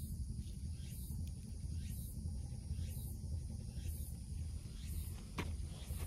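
Insects droning in a steady high-pitched chorus, with a short rising hiss repeating about once a second, over a steady low rumble. A faint click or two near the end.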